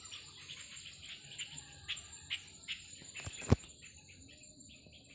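Field ambience of insects: a steady high trill with a quick run of short chirps, about four or five a second. A single sharp knock about three and a half seconds in is the loudest sound, a bump as the phone is swung around.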